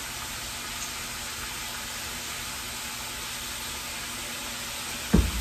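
Sliced onions and bell peppers sizzling steadily in a frying pan, with a single low thump near the end.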